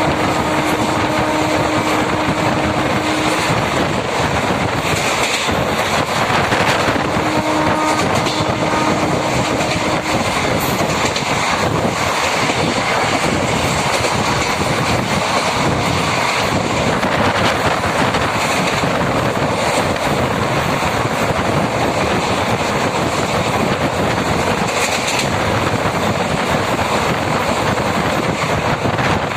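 MEMU electric passenger train running at speed, its wheels and rails making a loud steady rumble heard from inside the coach. A horn sounds twice, a held note of about three seconds at the start and another a few seconds later.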